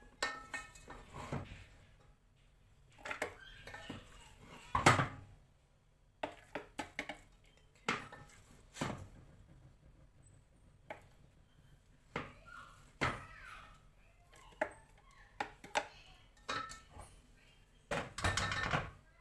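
A metal spoon clanking and scraping against a metal cooking pot in irregular knocks as cooked chicken and lentil mixture is scooped out into a plastic food-processor bowl. The loudest knock comes about five seconds in, and there is a longer clatter near the end.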